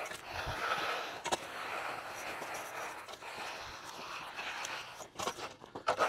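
Bull float sliding over a freshly poured, wet concrete slab: a breathy swishing scrape that swells and fades, with a couple of sharp clicks.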